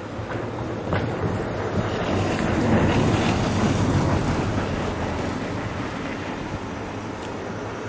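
Wind buffeting the microphone over a steady low rumble, growing louder for a few seconds about two seconds in, then easing.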